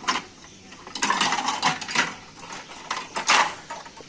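Steel cookware clattering and knocking irregularly as a stack of idli plates and other utensils is lifted and shifted by hand.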